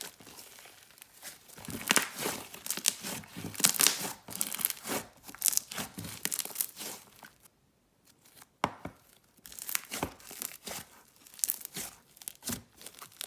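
Thick jelly slime being stretched and squeezed by hand, giving irregular crackling and tearing pops. The sound stops for about a second near the middle, then resumes.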